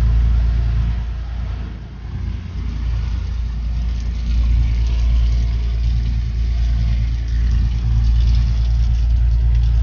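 A sportfishing boat's engine running with a steady low drone, dipping briefly about two seconds in.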